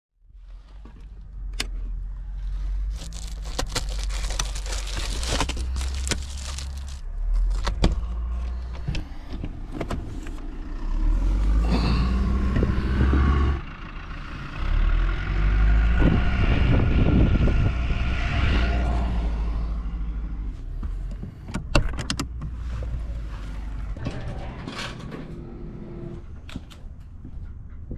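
Ford Econoline van engine running on a cold start, its revs rising and falling around the middle, with scattered clicks and knocks.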